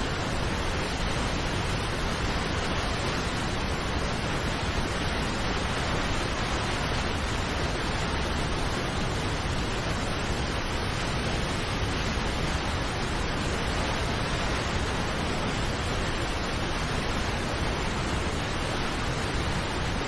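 Steady, even rush of the Paulo Afonso waterfall on the São Francisco River, heavy white water pouring over rock ledges into the gorge.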